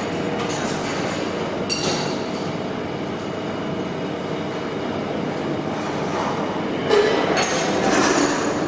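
Steady machine noise in a welding workshop, with several sharp knocks; the loudest knocks come about seven to eight seconds in.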